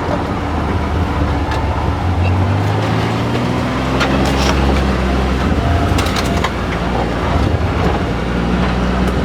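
Vehicle engine running while driving, its pitch rising and falling with speed. A few sharp knocks and rattles come about halfway through.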